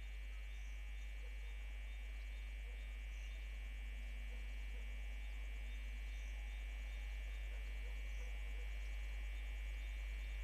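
Low rumble of a distant freight train hauled by Class 22E electric locomotives, slowly growing louder as it approaches, under steady insect chirping.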